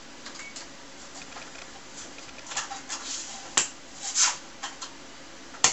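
Sharp clicks and short rustling scrapes from hands working a TRS-80 Model I, pressing the reset button and handling the disk drive, the loudest click coming near the end. It is a boot attempt that fails.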